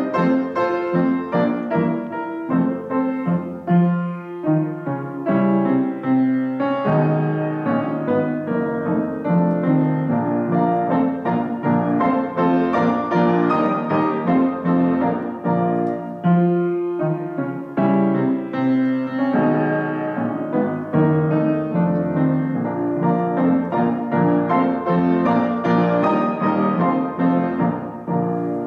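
Piano played four hands: two players at one keyboard performing a classical-style piece, with full chords and continuous notes across the bass and treble, pausing briefly between phrases about 4 and 17 seconds in.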